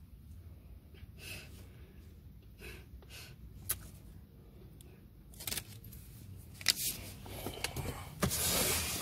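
Low steady hum of a car cabin, with paper and handling rustles from a receipt and the phone being moved. Scattered clicks and scrapes get busier in the second half, with a louder rustle near the end.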